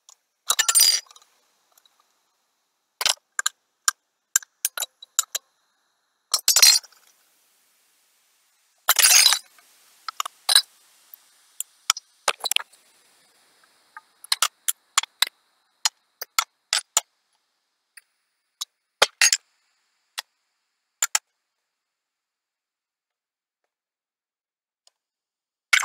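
Aluminium soda cans clattering against each other and the floor as a stacked tower topples, in three longer clatters (near the start, about six seconds in and about nine seconds in). In between are short, sharp clinks and taps of cans being set on top of one another.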